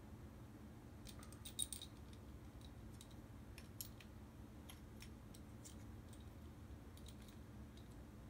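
Faint, scattered clicks and taps of small plastic dashcam mount parts being handled and tried together, with a short cluster of clicks just under two seconds in.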